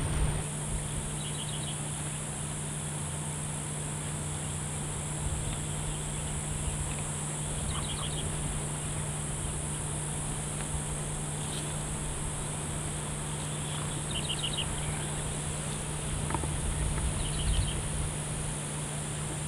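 Steady high-pitched buzz of insects in marsh vegetation, with a short burst of rapid ticking notes four times.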